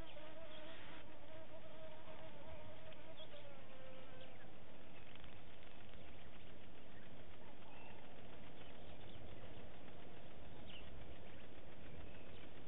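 A flying insect buzzing close to the microphone with a wavering hum that drops and fades out about four seconds in. Under it is a steady background hiss with a few faint short high chirps.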